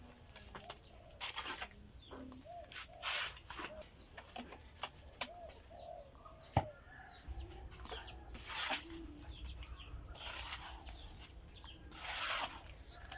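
A trowel scraping over fresh cement in separate strokes about every two seconds, finishing the surface smooth. Birds chirp and chickens cluck in the background, and there is one sharp knock about six and a half seconds in.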